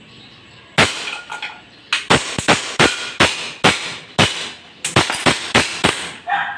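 WE Hi-Capa Dragon 5.1 gas blowback airsoft pistol fired from its 50-round extended magazine: more than a dozen sharp pops, starting about a second in, a couple of single shots and then quicker runs of shots. The magazine is feeding gas without leaking.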